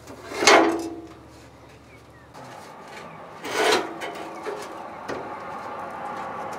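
Steel door shell of a 1970-81 Camaro door scraping and ringing against its sheet-metal outer skin as it is pulled free, loudest twice: about half a second in and again about three and a half seconds in. The spot welds are cut, so the skin comes away with little resistance.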